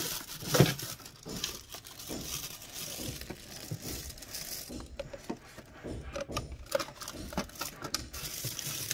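Plastic bags rustling and crinkling as packed food is pushed into a freezer, with irregular light knocks of plastic containers against the freezer's shelves. The loudest knock comes about half a second in.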